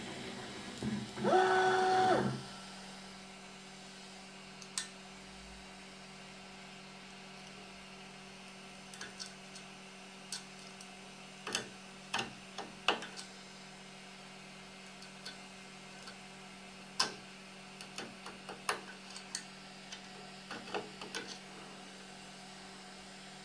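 Prusa i3-style 3D printer at work. Its stepper motors whine for about a second near the start, stepping up and down in pitch. Then a steady low hum runs on with scattered short ticks as the print head makes small moves.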